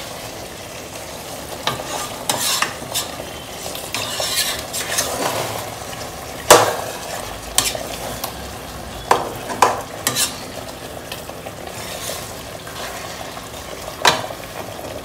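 A slotted metal spoon stirring thick butter chicken gravy, freshly thinned with water, in a steel pot over a steady sizzle of the simmering sauce. A few sharp clinks of the spoon against the pot stand out, the loudest about halfway through.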